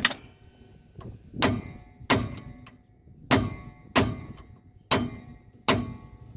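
Hammer blows on a chisel driven against a stuck rear axle bearing race: about seven sharp metal-on-metal strikes, roughly a second apart, each ringing briefly. The race is being beaten to split it loose and is not giving.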